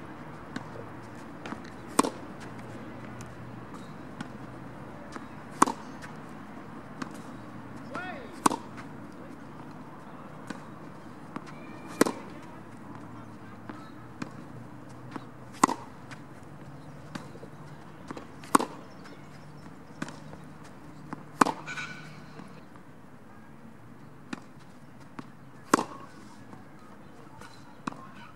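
Tennis racket striking the ball in a baseline rally: a sharp pock about every three and a half seconds, with fainter ball bounces and more distant hits between.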